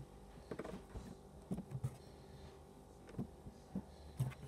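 Homemade slime squished and pressed between the fingers: a handful of quiet, soft squelches at irregular intervals.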